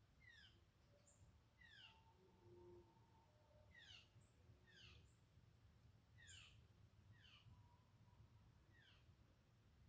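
Faint, high-pitched animal calls, each a quick downward slide in pitch, repeated about seven times at intervals of roughly one to one and a half seconds, over a low background rumble.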